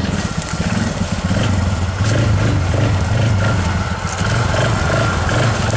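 A vehicle engine running steadily with a low, throbbing hum.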